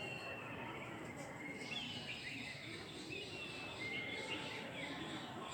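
Small birds chirping: repeated short, high chirps and brief slightly falling whistles, several overlapping, over a steady background murmur of outdoor noise.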